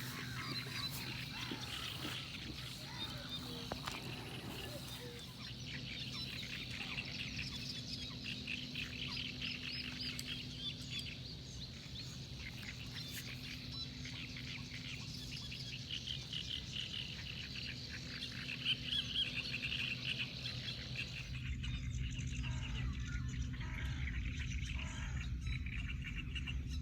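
A chorus of birds chirping and frogs calling, many rapid short calls, over a steady low hum. About five seconds before the end the chirping thins and a low rumble takes over.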